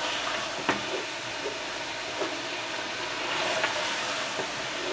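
Tomato masala sizzling in a large aluminium pot while a wooden spatula stirs it, with a few sharp knocks of the spatula against the pot.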